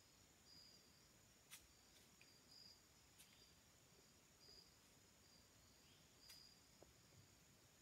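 Near silence with faint insects, likely crickets, giving short high chirps every second or two over a steady high hiss, and a few faint clicks.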